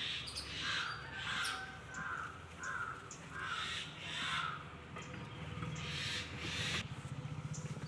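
Crows cawing repeatedly in a series of short, harsh calls, over a steady low hum.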